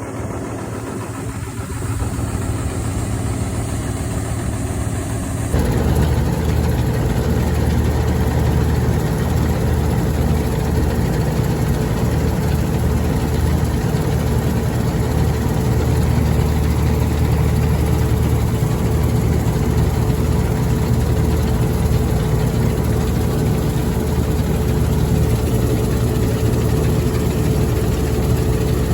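Clayson M122 combine harvester's engine running steadily. About five and a half seconds in, the sound jumps abruptly louder and then holds steady.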